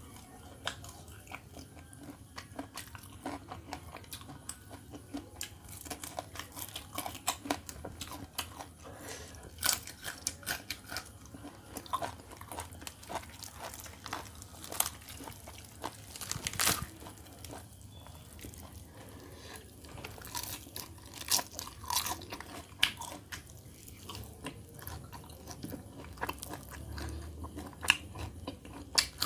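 Chewing and biting into whole roast chicken, its crisp skin crunching in irregular sharp crackles throughout.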